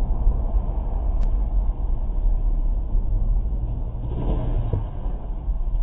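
Dashcam recording from inside a moving car on a highway: a steady low rumble of road and engine noise, thin and muffled, with a brief rougher burst of noise about four seconds in.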